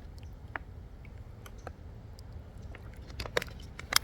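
Scattered light clicks and ticks of fishing tackle being handled as a glide bait is tied on, more of them near the end, over a steady low rumble.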